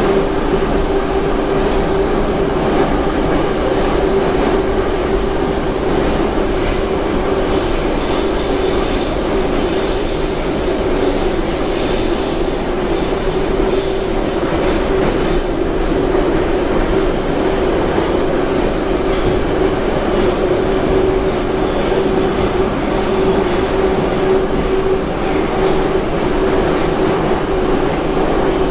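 Metro train running at speed, heard from inside the carriage: a loud, steady rumble with a constant hum from the running gear. A high-pitched wheel squeal rides over it from about 8 to 15 seconds in.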